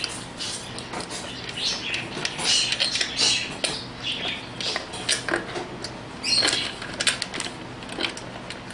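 Irregular light metallic clicks, scrapes and rattles of 10 mm bolts and nuts being undone by hand with a socket and pliers, freeing an air suspension pump from its mounting.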